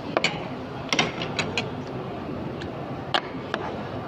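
A metal spoon clinking and tapping against plates and sauce dishes, about ten light, irregular clicks, over a steady background hiss.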